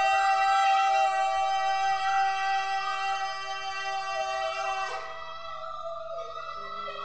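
Music: one long held note, rich in overtones, that gives way about five seconds in to lower, quieter notes.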